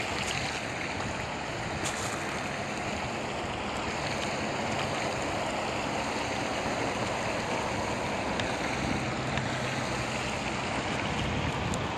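Water pouring over a low concrete spillway into the pool below: a steady rushing.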